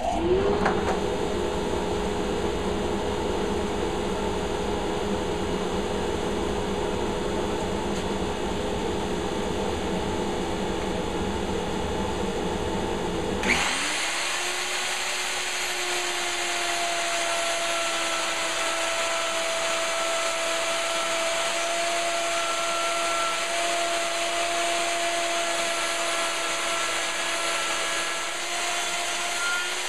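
Woodshop machine motors running steadily: one spins up right at the start, and about halfway through another spins up with a high whine, running evenly until it winds down near the end, while a shelf dado is cut in cabinet stock.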